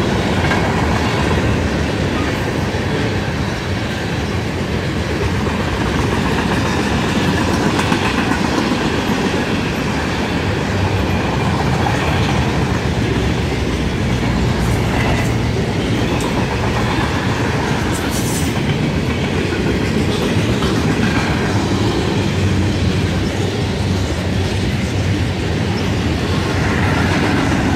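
Freight train cars rolling past, a steady, unbroken noise of steel wheels running on the rails.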